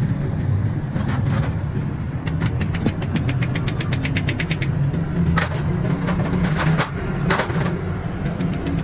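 Rebuilt motorcycle engine running steadily, with runs of rapid ticking and a few sharper clicks over the steady low hum.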